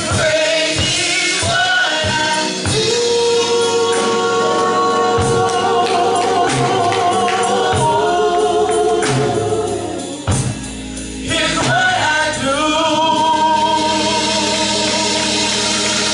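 Gospel praise team singing together into microphones, several voices holding long notes over instrumental backing. The voices drop out briefly about ten seconds in, then come back.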